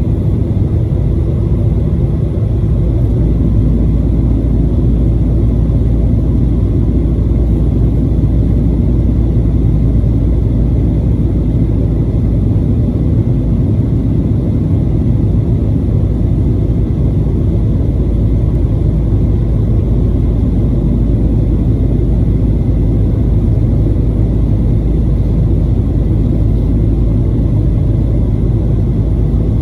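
Steady low rumble of cabin noise inside a Boeing 737-900ER in flight, from its CFM56-7B engines and the air rushing past the fuselage.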